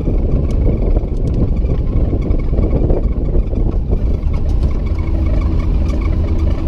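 Truck engine running while driving, with a steady low rumble from the engine and the road.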